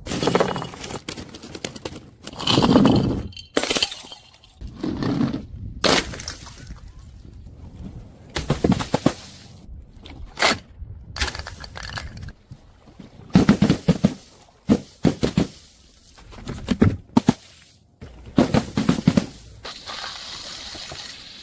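A series of separate crushing and breaking sounds, crunches and cracks cut one after another, some short and sharp, some longer and grinding. Near the end a steady hiss begins.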